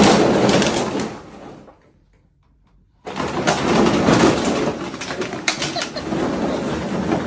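Empty plastic bottles crinkling and clattering, with the fabric of a pop-up playpen rustling, as a dog thrashes about inside the bottle-filled pen. A burst fades over about two seconds, there is about a second of near quiet, then the crinkling runs on continuously.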